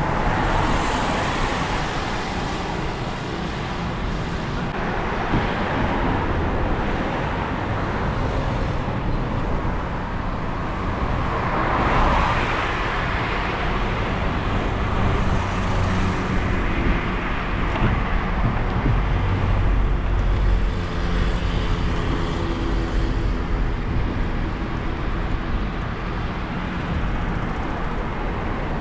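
Street traffic: cars passing one after another, each swelling into a hiss and fading, over a steady low rumble.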